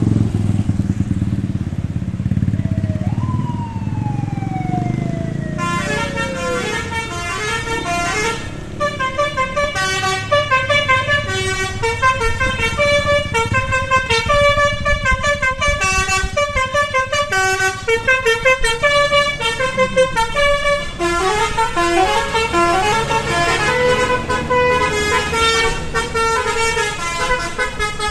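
Indonesian bus 'telolet basuri' musical horn playing a fast tune of short stepped notes, starting about six seconds in and running on. Before it, the bus engine rumbles and a single tone slides downward.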